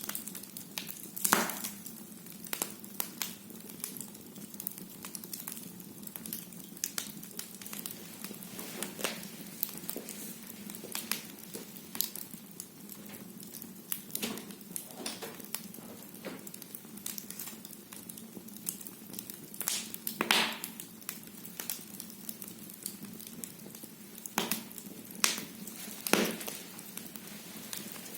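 Firewood burning in a fireplace: a steady soft hiss with irregular crackles and occasional sharp pops from the logs.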